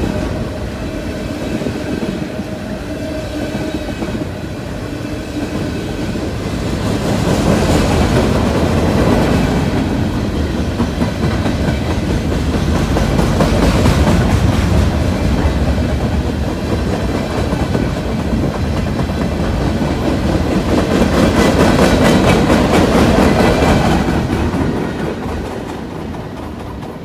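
Freight train of high-sided open-top cars rolling past, its wheels clicking over the rail joints in a steady rumble that swells and eases. The last cars go by near the end and the sound fades away.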